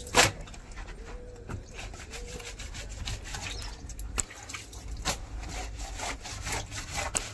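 Wet cloth scrubbed by hand against a concrete floor: an irregular run of rough rubbing strokes, with one sharper, louder stroke just after the start.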